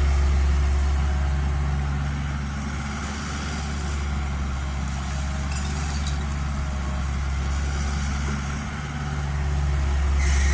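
Kubota U50 mini excavator's diesel engine running steadily with a low hum. It eases off a little partway through and picks up again near the end.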